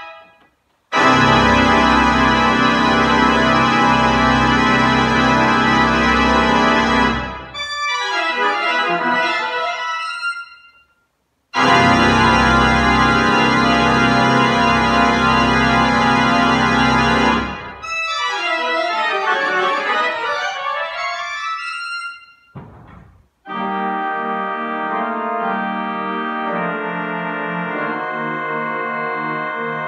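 Pipe organ playing loud full chords with deep pedal bass, each held about six seconds and followed by rapid running passages that die away into a short silence; this happens twice, then the organ moves to softer sustained chords with moving inner lines about two thirds of the way in.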